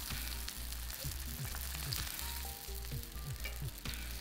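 Oil sizzling and crackling steadily around rice paper dumplings as they pan-fry in a generous amount of hot oil over medium to medium-high heat.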